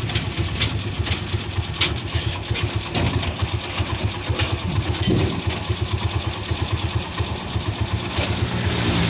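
A vehicle engine running steadily during a ride, with a fast low pulsing and scattered light clicks and rattles.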